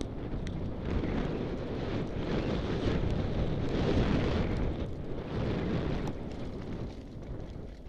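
Wind rushing over a helmet-mounted camera's microphone as a mountain bike rides fast down a gravel trail, with a few light clicks; the noise swells loudest in the middle and eases near the end.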